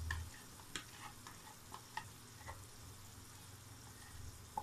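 Onion-and-spice masala frying in oil in a wok with a faint sizzle as whisked yogurt is poured in, with scattered light pops and ticks every half second or so and a low hum underneath.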